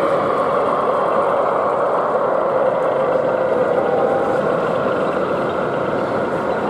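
Steady diesel engine drone of a sound-fitted model Class 60 locomotive as it runs past hauling tank wagons, easing off slightly in the second half.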